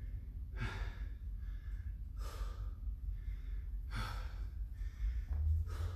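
A man breathing hard, out of breath from an intense workout: four heavy exhalations about one and a half to two seconds apart, over a steady low hum.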